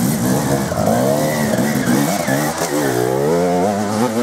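Enduro motorcycle engine revving up and down as the bike is ridden hard on a dirt track; its pitch dips about three seconds in and climbs again.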